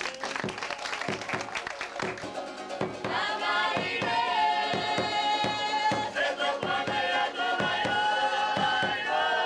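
Polynesian dance music: drums beat a fast rhythm, and about three seconds in a group of voices comes in singing long held notes over the drumming.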